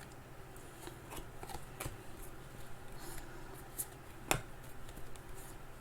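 Trading cards being handled and flipped through by hand: faint sliding and rubbing with scattered soft clicks, and one sharper tick about four seconds in.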